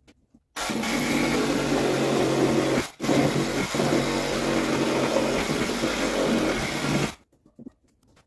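Reciprocating saw cutting through plywood ceiling panel, running in two long stretches with a brief stop about three seconds in, and cutting off about seven seconds in.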